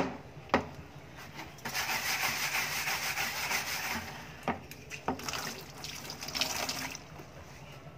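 Steel-wire scrubber rubbing gritty kolam powder against the inside of a plastic bucket to scour off stains, in two spells of scrubbing separated by a few clicks. Two sharp knocks come near the start as the bucket is handled.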